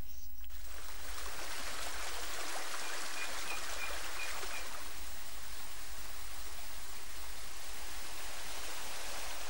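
A steady, even rushing noise that sets in abruptly about half a second in and holds at one level, with a few faint high chirps in the middle.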